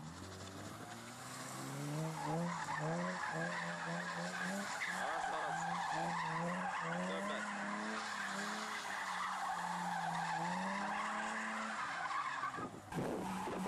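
BMW E36 saloon drifting in circles on concrete: the engine revs rise and fall in quick steps as the throttle is blipped, with steady tyre squeal over it. The sound breaks off abruptly about a second before the end.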